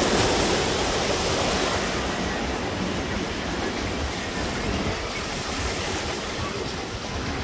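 Small sea waves breaking and washing up onto a sandy beach: a steady rush of surf, a little louder in the first two seconds.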